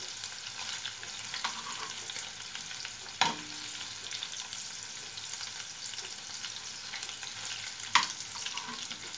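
Large prawns and garlic sizzling in hot oil in a non-stick frying pan as they are stirred with a spoon. Two sharp clicks of the spoon against the pan stand out, about three seconds in and again near the end.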